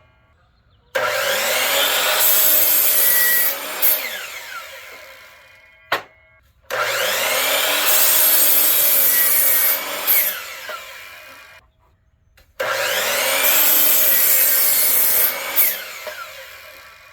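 Wood being sawn in three similar passes. Each starts abruptly, runs loud for a couple of seconds and then dies away, with a sharp click between passes.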